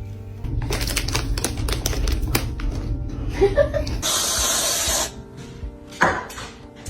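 Plastic treat bag crinkling and rustling in quick crackles, with a harsher, louder rustle for about a second past the middle and a single knock near the end, over background music.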